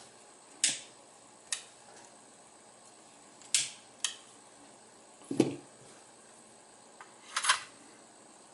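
A few sharp clicks and a duller knock from small metal tools and lighter parts being handled on a work surface, with a short scratchy rattle near the end.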